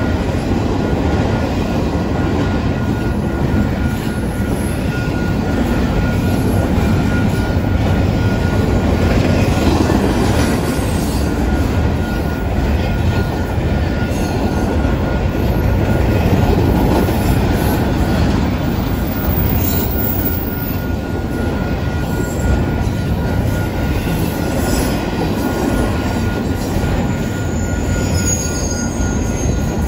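Double-stack intermodal well cars rolling steadily past on the rails, a continuous loud rumble and clatter of wheels and car bodies, with a thin steady high squeal running through it.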